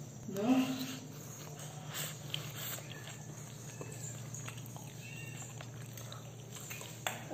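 A man with a mouthful of noodles makes a short closed-mouth 'mm' about half a second in. The rest is quiet: a steady low hum with faint scattered clicks and rustles.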